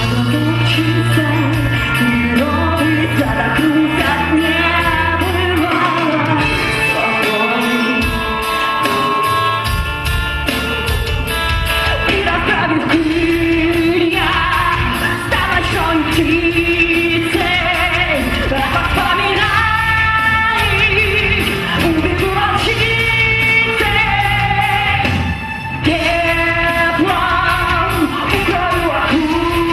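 Live rock band playing, with a woman singing lead over keyboards, drums, bass guitar and electric guitar.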